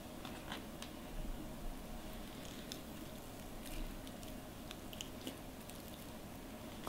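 Hands squeezing pork-stuffed bitter melon halves back together: faint squishes and a few light clicks over a low room hum.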